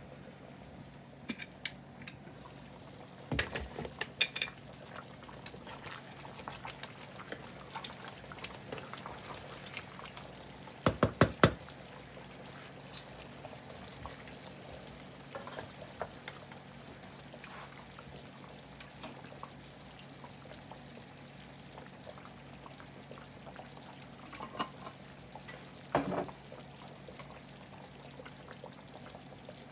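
Stovetop cooking sounds: a few sharp metal knocks and clatters of pots, lid and utensils, the loudest a quick run of about four clanks about eleven seconds in, over a faint steady low hum.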